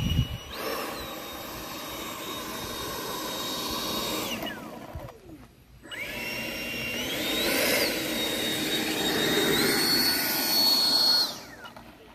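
FMS 80 mm electric ducted-fan Dassault Rafale RC jet spooling up to a steady high whine with a rush of air as it taxis, winding down about four seconds in, then spooling up again a second later, climbing a little higher, and winding down again near the end.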